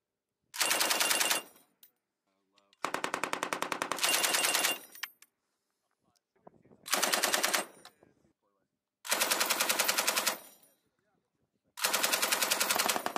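Belt-fed machine gun firing in short bursts of rapid shots, each about a second long with pauses of one to two seconds between them; the third burst runs longer, about two seconds.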